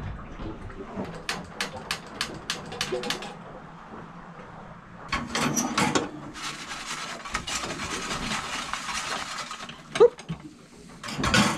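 Metal baking tins and the wire oven rack of an Eno galley oven clinking and clattering as tins are taken out and a tray is set in. A quick run of clicks comes near the start, a soft hiss runs for a few seconds midway, and a single sharp knock comes near the end.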